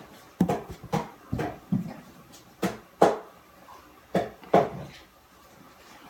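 A lump of homemade slime bounced like a bouncy ball on a hard surface: about eight short thuds, coming roughly in pairs, the loudest about three seconds in.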